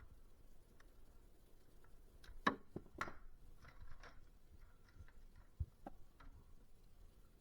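Scattered faint clicks and knocks of hands and tools working on the parts of an old CRT computer monitor during scrapping, with two louder knocks about two and a half and three seconds in and another near five and a half seconds.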